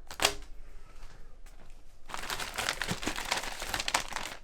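Packaging being handled during an unboxing: a sharp knock just after the start, then a couple of seconds of dense crinkling and rustling of wrapping as items are pulled out of the box.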